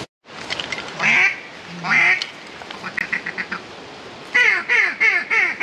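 Mallard duck call blown as hen quacks. There are two single quacks, then a quick stuttering run, then a string of falling quacks at about four a second starting a little past halfway: calling to bring passing ducks in to the decoys.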